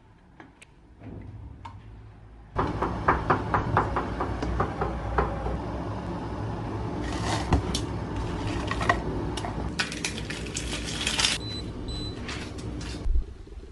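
Kitchen clatter: utensils and dishes knocking, with many sharp clicks over a steady noise. It starts abruptly a few seconds in and cuts off suddenly near the end.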